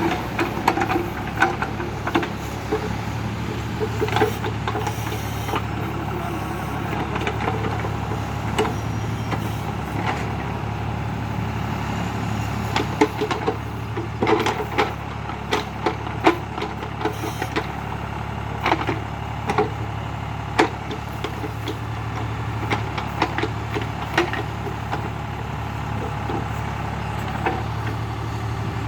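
John Deere tractor's diesel engine running steadily under the backhoe attachment, with irregular sharp knocks and clatters throughout.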